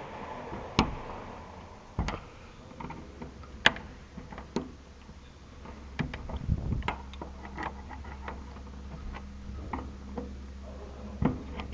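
Irregular sharp clicks and knocks of a screwdriver prying and tapping at the locking ring of a car's fuel pump and level-sender assembly to loosen it. A faint low hum starts about three seconds in.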